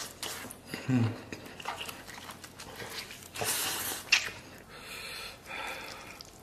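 A person eating instant noodles in tomato broth: a loud slurp of noodles a little past halfway, with chewing and mouth clicks around it and a brief low 'mm' about a second in.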